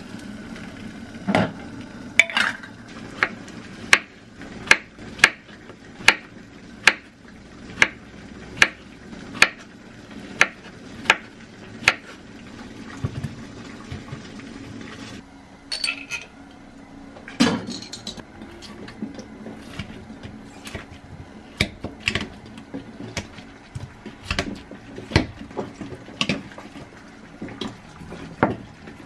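Kitchen work with glass and metal: a glass jar clinking in a steel pot of boiling water, then a run of sharp knocks, about one a second, followed by scattered clinks of dishes, a sieve and the jar being handled.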